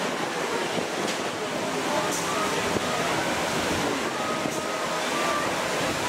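Steady rushing outdoor background noise, likely wind on the microphone, with an indistinct murmur of voices from people around.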